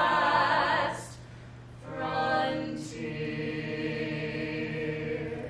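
Four stage performers singing together in harmony, holding long chords with vibrato; the first chord cuts off about a second in and a new one starts about two seconds in.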